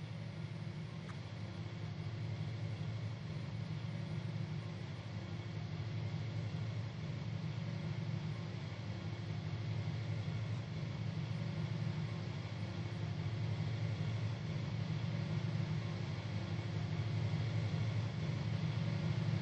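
Diesel-hauled freight train rumbling steadily, growing slowly louder, with a faint hum that comes and goes every second or two.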